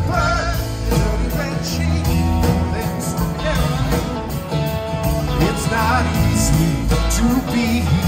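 Live pop-rock band playing with singing, with guitars, bass and drums, heard from within the audience in a large hall.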